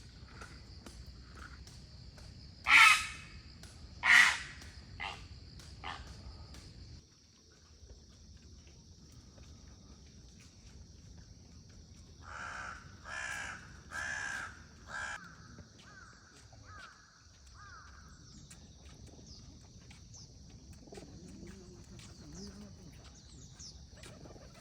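Crows cawing. Two loud harsh caws come about three seconds in, followed by a few softer ones, then a run of about six caws from about twelve seconds in that fade away. A steady high-pitched buzz sits underneath throughout.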